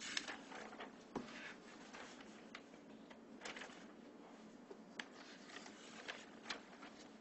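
Faint room tone with a scattering of small, sharp clicks and taps.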